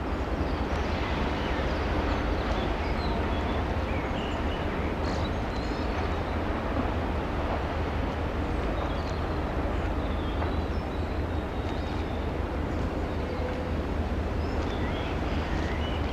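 Steady outdoor harbour ambience: a deep low rumble under an even wash of noise, with scattered short high chirps throughout.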